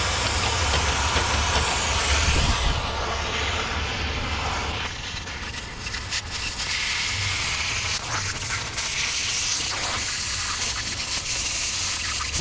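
Oxy-fuel cutting torch hissing steadily as it cuts through the steel door of a gun safe around the lock. The hiss eases a little after about three seconds, with a few short sharp crackles later on.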